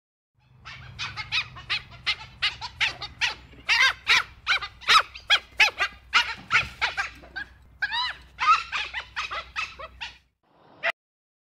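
Dhole calling: a fast string of short, high, pitched calls, about four a second, some rising and falling in pitch. The calls stop shortly before the end, and one last call follows.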